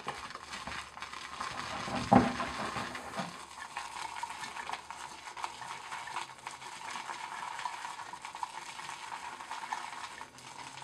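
Boar-bristle shaving brush (Semogue 830) whipping shaving soap into lather in a bowl: a steady wet swishing, with one brief louder knock about two seconds in. Water has just been added and the lather is building up peaky and foamy.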